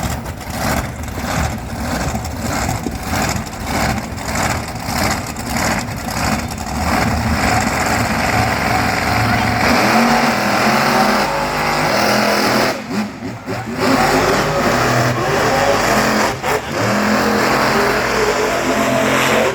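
Monster truck engines revving in rhythmic pulses at the line, then running hard at high revs from about ten seconds in, the pitch stepping up and down.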